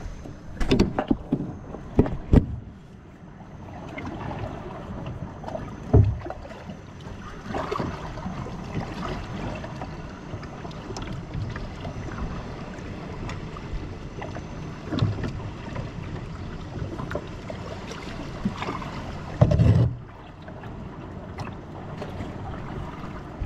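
Kayak being paddled: water swishing and splashing from the paddle strokes, with a few sharp knocks and thumps, the loudest near the end.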